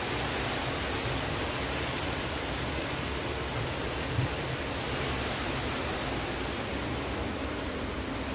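Heavy monsoon rain pouring down, a steady, even hiss of falling water.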